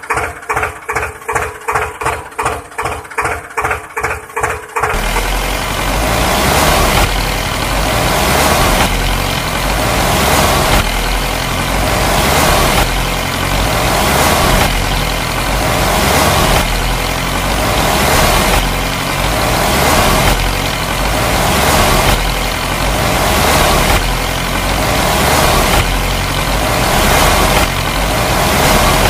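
For about the first five seconds, background music with a quick pulsing beat; then it switches to a loud diesel tractor engine sound that runs on steadily, swelling and easing about once a second.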